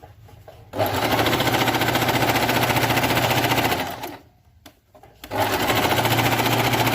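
Singer Fashion Maker 8280 electric sewing machine running at speed, stitching a decorative pattern stitch in fast, even strokes. It runs for about three seconds, stops briefly, then starts again.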